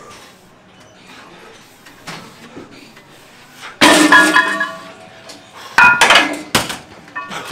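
Metal gym weights clanking against metal: a loud, ringing clang about four seconds in, then two more sharp clangs close together about two seconds later.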